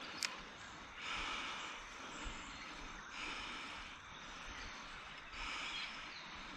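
A person breathing hard close to the microphone, with a breath about every two seconds, and a single sharp click just after the start.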